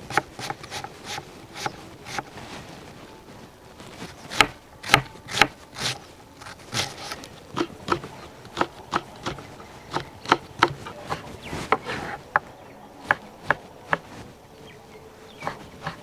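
Large knife chopping onion, green chillies and tomato on a wooden chopping board: irregular sharp knocks of the blade on the wood, a few a second, broken by short pauses.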